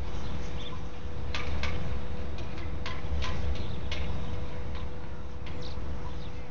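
A string of sharp, irregular clicks and taps from the flag halyard and its clips knocking against the metal flagpole as the halyard is worked by hand, over a steady low rumble.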